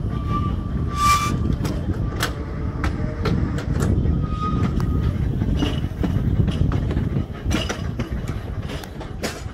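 Narrow-gauge electric tram running slowly on a curve: a steady low rumble with irregular sharp clicks of the wheels over rail joints and points, and two short high squeals, about a second and about four and a half seconds in.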